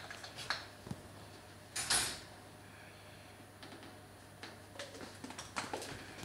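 Kitchen utensils and containers being handled: scattered light clicks and knocks, with one louder brief scraping rustle about two seconds in.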